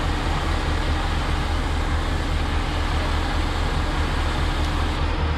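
Heavy rotator tow truck's diesel engine running steadily at a constant speed, a continuous low drone, as it powers the boom hydraulics for a lift.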